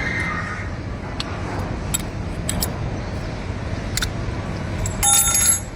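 Light metallic clicks and taps of tools and parts over a steady low rumble, then, about five seconds in, a loud ringing metal clink lasting about half a second.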